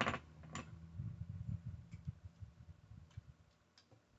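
Small plastic toy building bricks being handled and pressed together: a couple of sharp clicks at the start, then a string of softer low knocks and fumbling that dies away.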